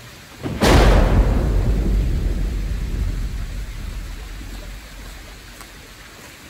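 A thunderclap: a sudden crack about half a second in, then a deep rumble that fades away over about four seconds.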